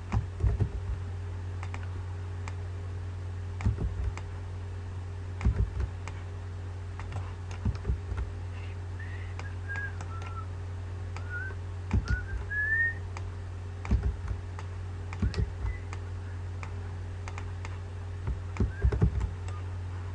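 Computer mouse and keyboard clicks on a laptop, picked up by its own microphone over a steady low electrical hum. A few short, faint whistle-like chirps come in the middle.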